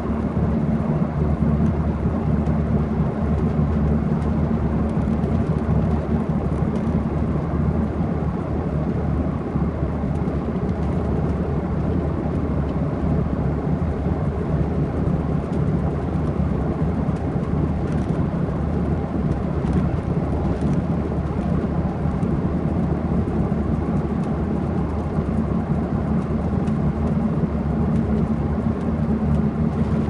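Ride ambience inside a moving bus: a steady low rumble of engine and road noise that never lets up.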